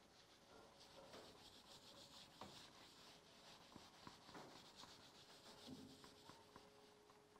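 Whiteboard eraser wiping across a whiteboard in quick back-and-forth strokes, a faint dry rubbing hiss with a few light knocks.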